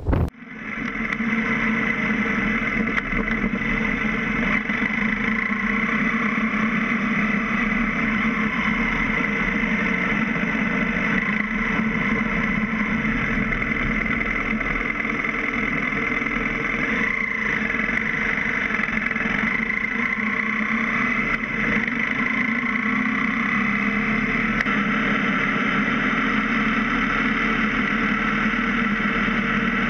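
BMW F650 GS motorcycle running at a steady cruise, its engine drone mixed with wind and road noise as picked up by a camera mounted on the bike.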